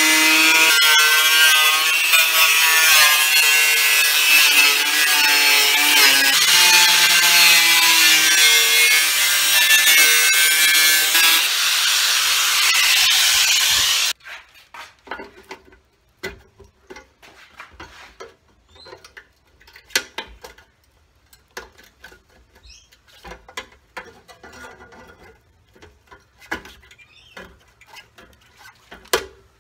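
Electric angle grinder with a cutting disc slicing through the thin sheet steel of a letterbox, its whine wavering in pitch as the disc is loaded. The grinder cuts off suddenly about halfway through, followed by scattered light clicks and taps of metal being handled.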